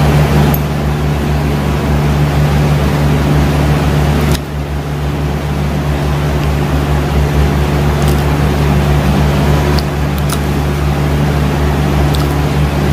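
Steady, loud low hum of a motor or electrical drone, with a few faint short clicks scattered through it.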